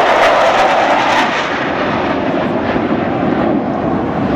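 Jet roar of the USAF Thunderbirds' F-16C/D fighters flying past in formation. It is loudest in about the first second, then eases slightly to a steady roar.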